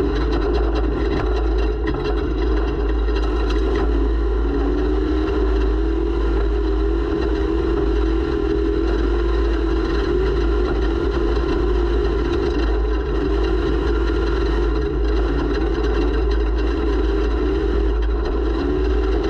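Off-road race vehicle's engine running steadily while under way, heard from a rear-mounted onboard camera. Its pitch wavers up and down a little with the throttle, over a constant deep rumble.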